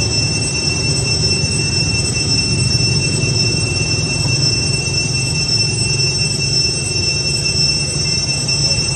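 Cicadas droning steadily in several high-pitched tones, over a constant low rumble.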